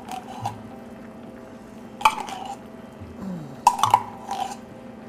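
A metal utensil scraping and tapping tomato paste out of a small tin can over a pan of sauce: a sharp metallic clink about two seconds in and two more close together near four seconds, over a steady low hum.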